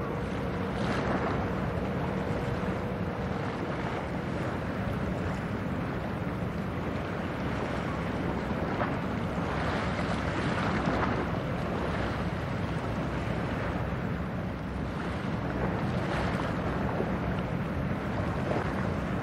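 Wind buffeting the microphone over the wash of waves, with a steady low drone from the passing cargo ship's engine underneath. The noise swells softly a few times.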